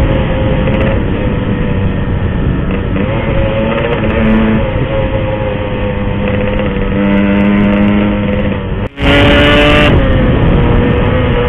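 Yamaha RX-King's two-stroke single-cylinder engine running under throttle while riding, its pitch shifting a little. Just before nine seconds the sound drops out briefly, then comes back louder for about a second before settling.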